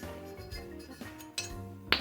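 Background music with held notes. A sharp metallic clink comes near the end, with a fainter tap about half a second before it.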